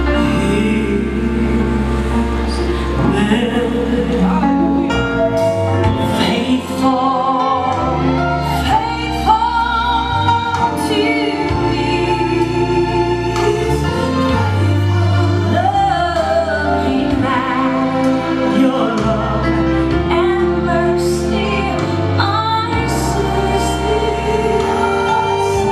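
Gospel song playing: a wavering lead vocal over sustained low bass notes.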